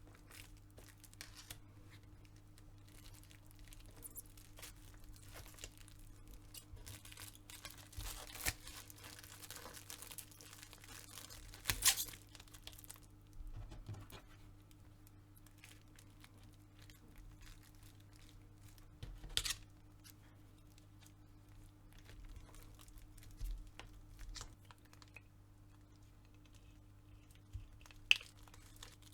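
Quiet handling sounds of leatherwork at a bench: faint rustling, scraping and crinkling of leather and material being worked, with a few sharp knocks as tools are set down or struck, over a steady low hum.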